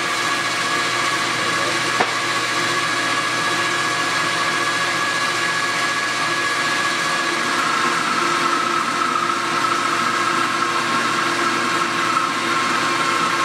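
South Bend Heavy 13 metal lathe running under power with a steady gear whine, and a sharp click about two seconds in. From about seven and a half seconds in, the tool bites into a heavy 0.030-inch cut on the spinning shaft, adding a rougher, higher cutting whine.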